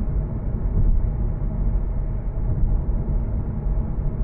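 A vehicle driving, its engine and road noise a steady low rumble.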